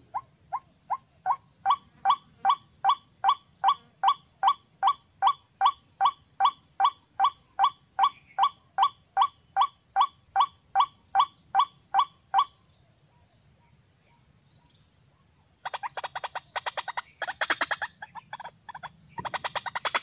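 A watercock calls a monotonous series of single hollow notes, about two and a half a second, which stop about twelve seconds in. From about sixteen seconds a rapid harsh chattering and scuffling starts up as birds tussle with flapping wings. A steady high hiss runs underneath.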